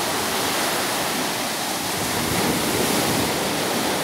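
Lake waves washing up onto a flooded sandy beach: a steady rush of surf with no breaks.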